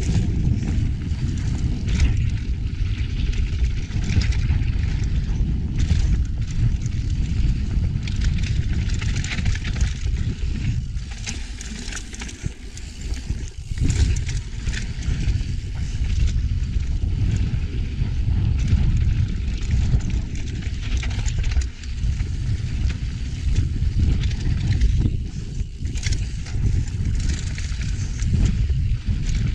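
Mountain bike ridden fast down a dirt singletrack: steady low rumble of tyres on dirt and wind on the action camera's microphone, with frequent clicks and knocks from the bike chattering over bumps.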